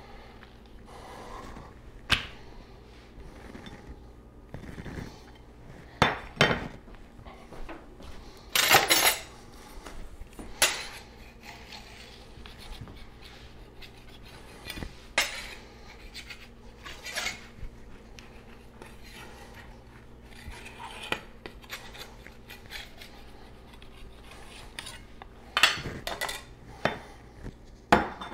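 A ceramic pie dish and a metal spatula knocking and scraping on a tiled countertop: scattered sharp clacks, with a longer scrape about nine seconds in.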